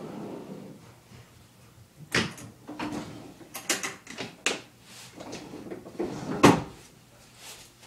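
Scattered knocks and clatters of someone handling a drawer or cupboard and rummaging through clothes, with about five sharp knocks; the loudest comes about six and a half seconds in.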